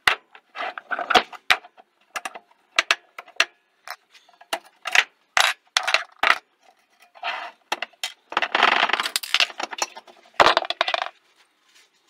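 Steel mini-bike swingarm and coil-spring rear shock clanking as they are worked loose and set down: a run of sharp metal clinks and knocks, a longer scraping rattle about nine seconds in, and a heavy clank soon after.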